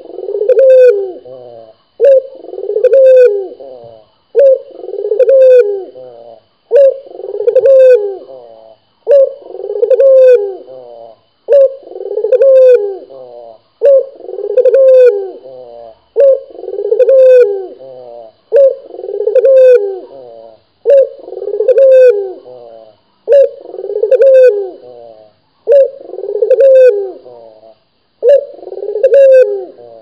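A caged puter dove cooing over and over, one call about every two and a half seconds, each starting loud and trailing off.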